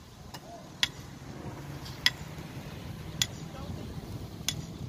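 Sharp metallic clinks from the steel scaffold frame being assembled, one about every second and a bit, each short with a brief ring.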